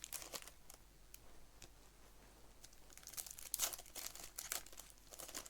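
Plastic wrappers of baseball card packs crinkling and tearing as packs are opened and handled, in scattered short bursts, busiest just after the start and again in the second half.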